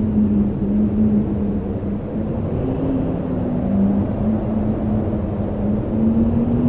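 Howling wind: a steady low rushing with a moaning tone that slowly wavers up and down in pitch.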